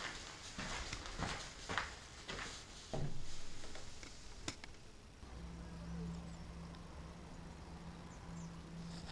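Footsteps, about two a second, walking through a vaulted stone cellar. They stop about halfway through and a steady low hum takes over.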